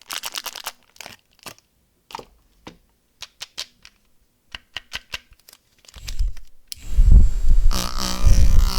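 Candy wrapper being unwrapped: scattered crinkles and small tearing crackles of plastic packaging. About six seconds in, a much louder, low, buzzy pitched sound takes over.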